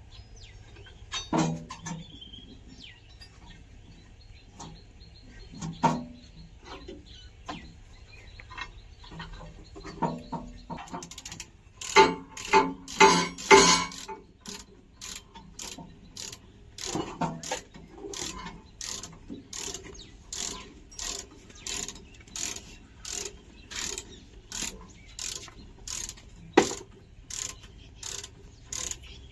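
Scattered mechanical clicks and knocks, then from about halfway a regular clicking at about one and a half strokes a second over a low steady hum.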